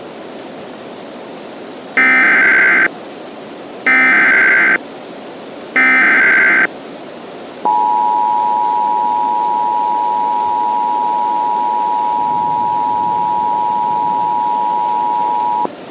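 Emergency Alert System tones over a steady radio hiss. First come three short bursts of SAME header data, each just under a second and about two seconds apart. Then the two-tone attention signal holds for about eight seconds and cuts off, announcing a flash flood warning.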